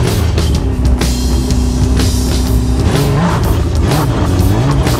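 Snowmobile engine running under load as it tows an ice-fishing shack, its note shifting about three seconds in, with background music over it.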